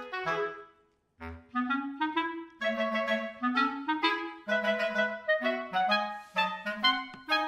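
Background music: a woodwind melody in short, quick notes, which breaks off briefly about a second in and then starts again.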